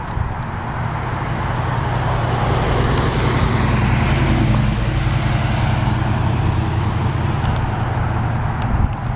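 A car drives past on the road, its tyre and engine noise swelling to its loudest about three to four seconds in and then fading. Underneath it runs the steady low hum of an idling engine.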